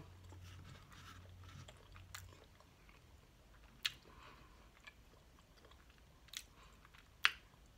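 Chewing a bite of a Church's handheld chicken pot pie, close to the microphone: quiet wet mouth sounds broken by three sharp smacks spaced a couple of seconds apart.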